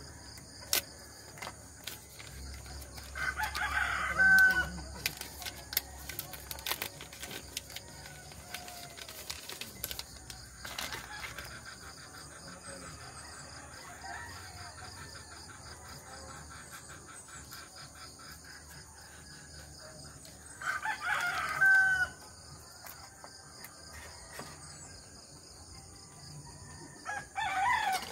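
A rooster crowing three times, each crow lasting a second or two: about 3 s in, again around 20 s, and near the end. Between the crows there is a steady high insect drone and light crinkling of a paper coffee packet being handled.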